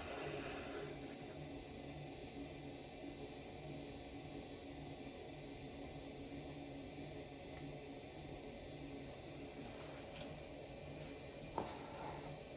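Electric pottery wheel running steadily, a low hum that pulses evenly with a thin, steady high whine over it. A single short click near the end.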